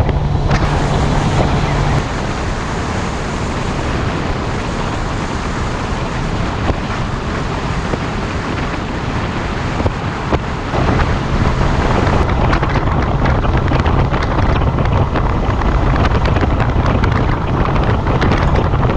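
Suzuki 200 hp outboard driving a boat at speed, its steady engine hum mixed with heavy wind noise on the microphone and rushing water. The engine hum comes through most plainly at the start and through the second half.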